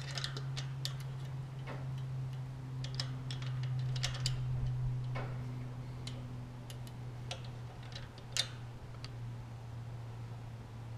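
Scattered light metallic clicks and taps of a screwdriver and wrench being handled at a rocker-arm adjusting screw and jam nut on an aircraft engine cylinder, over a steady low hum.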